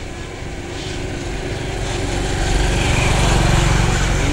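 Engine of a passing road vehicle, a steady pulsing rumble that grows louder as it approaches and is loudest about three and a half seconds in.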